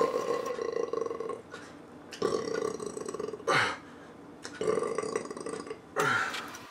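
A man belching five times in a row, three long burps of about a second each and two shorter ones that drop in pitch, from a stomach full of White Castle sliders.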